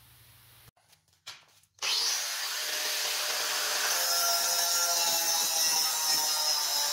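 Angle grinder cutting through a steel reinforcing bar, starting about two seconds in and running steadily with a high-pitched grinding whine.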